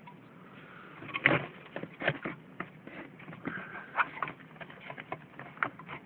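Irregular clicks, taps and rattles of a Titan space heater's plastic housing, fan assembly and wiring being handled during disassembly, with a brief squeak about three and a half seconds in.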